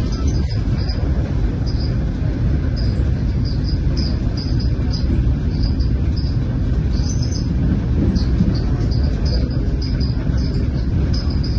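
Steady low rumble of a train running at speed, heard from inside the passenger car. Faint, short, high chirps repeat every half second or so over it.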